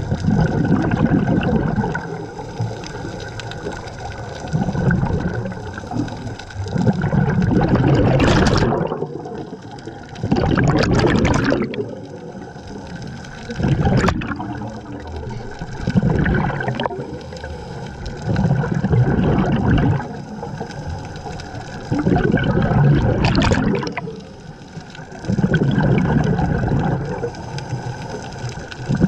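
Scuba diver breathing through a regulator underwater: exhaled bubbles gurgle in swells of a second or two, coming again every few seconds.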